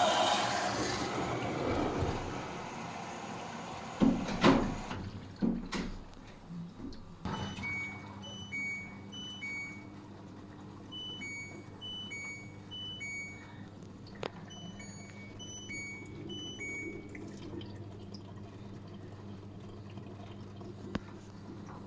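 LG washing machine: water rushing for the first few seconds, then a few knocks, then a steady hum with repeated groups of short electronic beeps at two or three pitches.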